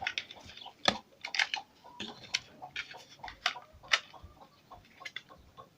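Irregular light clicks and taps: a cassette player's mechanism and its small parts being handled.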